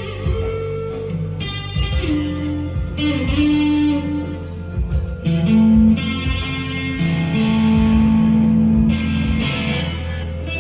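Squier Deluxe Stratocaster with Duncan Designed pickups, played through overdrive, picking long, held single-note lead lines with a bend, over a backing track with bass and drums.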